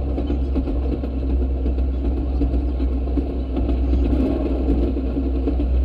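Railroad speeder (track motorcar) travelling along the rails: its small engine runs with a steady drone over a low rumble of steel wheels rolling on the track.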